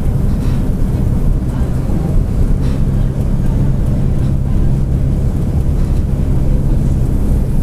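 Mercedes-Benz OF-1722M city bus running at a steady pace: a loud, even low drone with a held low hum, carrying the growl of its differential.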